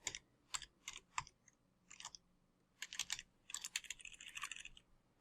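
Typing on a computer keyboard: a few separate keystrokes, a short pause about halfway, then a quicker run of keys.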